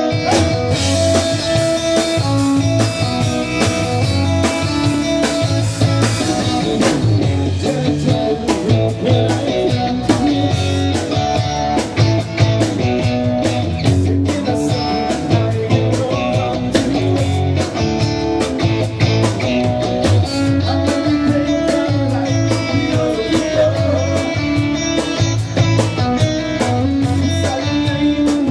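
Live band playing blues-rock music led by guitar, with a steady beat.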